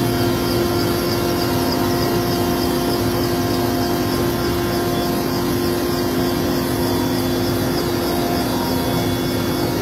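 Helicopter turbine engine and rotor running, a loud, steady drone with a constant low hum.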